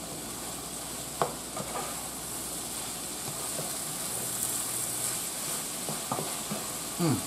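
Seasoned meat and sausage sizzling steadily in a skillet over high heat while being stirred with a spoon, with a couple of clicks of the spoon against the pan.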